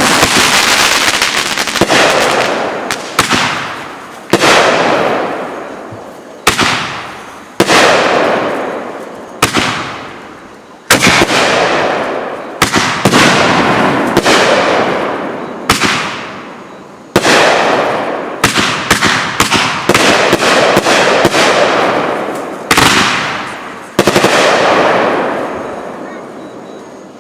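Aerial fireworks bursting one after another, more than a dozen sharp bangs, each trailing off into a crackling hiss that fades over a second or two.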